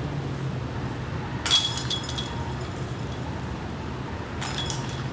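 Disc golf basket chains rattling and jingling as putted discs strike them, twice: a loud clash about a second and a half in and a softer one near the end. A steady low hum runs underneath.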